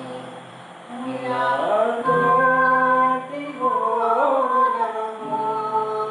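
A man and a woman singing together to a strummed acoustic guitar, held melodic notes, softer for the first second and then fuller.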